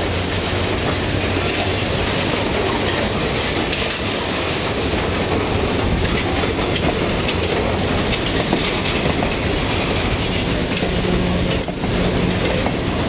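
Ontario Northland work train of open-top hopper cars rolling past at close range, a steady sound of steel wheels running on the rail.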